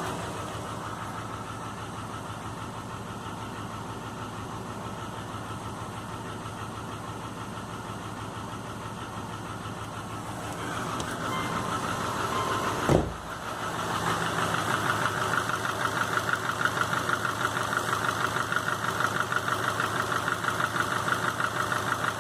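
2005 Subaru Legacy GT's turbocharged 2.5-litre flat-four idling with a rhythmic knock that persists after a rebuild with new crankshaft and bearings; the cause is unknown. A single sharp thump sounds about halfway through, after which the engine is louder with a fast, even pulsing knock.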